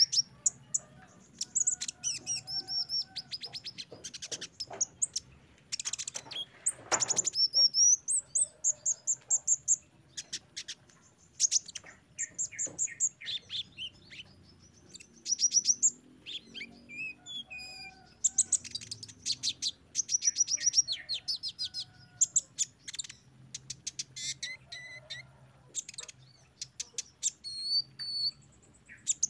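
Sunbird singing: rapid strings of high, thin chirping notes and trills in bursts, phrase after phrase. About seven seconds in there is a brief rustling noise.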